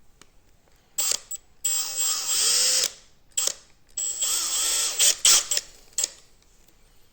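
Small electric screwdriver running in a series of short bursts, about six, the longest around a second, driving small screws into a 3D-printed part. Its whine bends in pitch as the screws take load.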